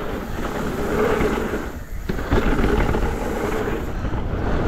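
Downhill mountain bike with VeeTire Snap WCE tyres rolling fast over a dirt trail: tyre noise, bike rattle and wind on the microphone. About two seconds in the sound drops away briefly and comes back with a knock.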